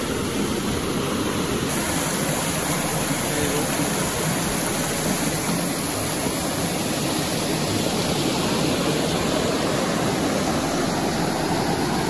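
Steady rush of a small waterfall cascading over rock into the river.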